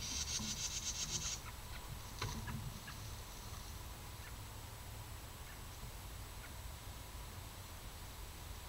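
A high-pitched, rapid chattering call from a wild animal, lasting about a second and a half at the start, then a shorter call about two seconds in, over a faint steady low hum.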